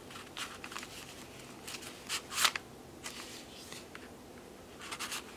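Paper rustling as hands slide and handle small card tags in a journal page pocket: short rubs and scrapes of paper against paper, the loudest a pair of rubs about two seconds in.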